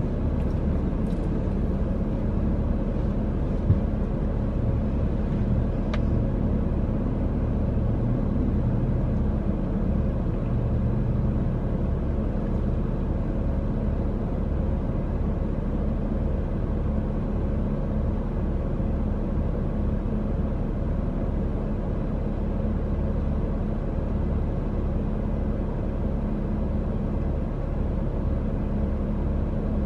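Steady low rumble of a car driving, engine and road noise without change, with a single short click a few seconds in.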